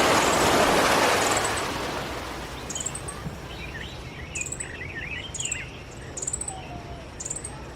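Outdoor ambience of birds twittering, with a short, high chirp repeating about once a second. A rushing noise fades away over the first two seconds.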